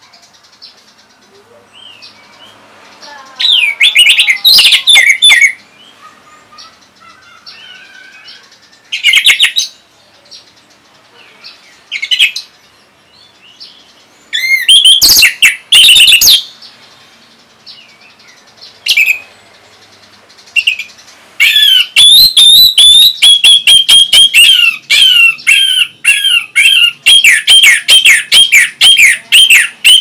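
Orange-headed thrush singing: loud short phrases of fast, varied whistled notes every few seconds, then from about two-thirds of the way through a long run of rapid repeated notes with hardly a break.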